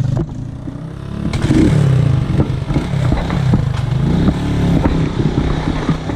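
Motorcycle engine revving up and down several times, its pitch rising and falling, with clattering knocks and rattles throughout.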